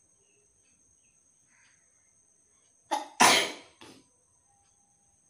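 A person's single explosive burst of breath from nose and mouth: a short sharp onset about three seconds in, one loud blast, then a smaller puff right after.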